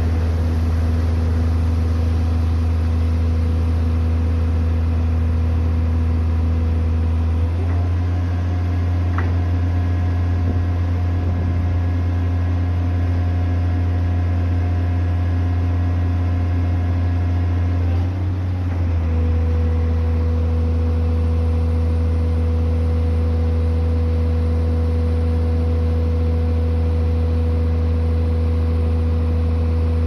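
XCMG truck crane's diesel engine running with a steady drone. From about 7 to 19 seconds in the tone shifts and a higher whine joins as the hoist winch works, paying out line to lower a hook, then the drone settles back.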